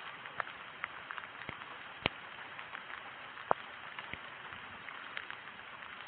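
Rain falling: a steady hiss with scattered sharp taps of drops, two louder taps about two seconds and three and a half seconds in.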